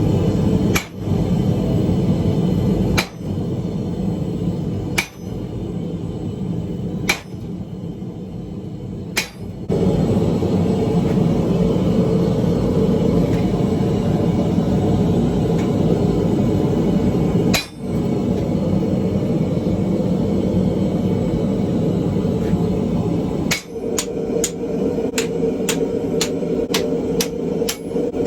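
Hammer blows on wrought iron at the anvil. Single strikes come about every two seconds, then two more spaced far apart, then a quick run of about three blows a second near the end. A steady low rumble runs underneath.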